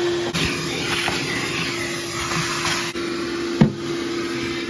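Shop vacuum running steadily with a high motor whine, its hose nozzle sucking up dirt and debris. A sharp knock comes about three and a half seconds in.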